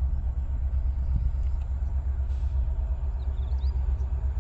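Steady low rumble of an approaching passenger train hauled by a WDP-4D diesel locomotive. A bird chirps faintly about three seconds in.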